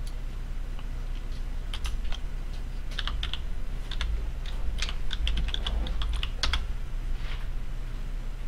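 Typing on a computer keyboard: scattered keystrokes, then quick runs of clicks from about three to seven seconds in, over a low steady hum.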